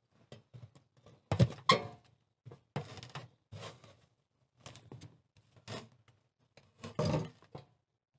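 Hands scooping and packing dry earth and clay into the gap around a metal stove pipe: a series of short scrapes and crumbling soil, the loudest about a second and a half in and again near the end.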